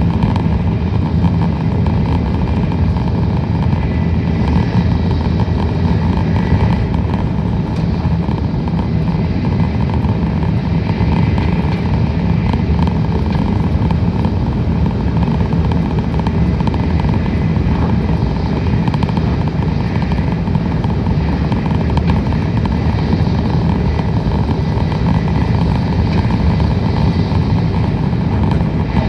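Tokaido Shinkansen train running at speed, heard from inside the passenger cabin: a steady, deep running rumble and rush.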